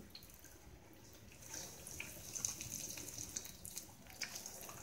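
Hot oil sizzling and crackling faintly as batter-coated whole boiled eggs (egg bajji) deep-fry in a kadai. The crackle grows livelier about a second and a half in, as another batter-coated egg goes into the oil.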